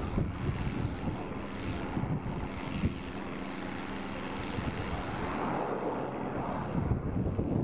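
Tractor diesel engine running steadily under load as it works the field, with wind rumbling on the microphone.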